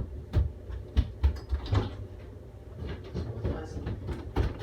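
Irregular knocks and thumps with some lighter clattering, loudest about a second in and near the end.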